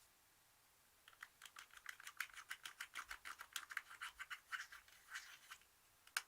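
Slime being worked by hand, giving a quick run of faint clicks and pops of about five a second, with a few more clicks near the end.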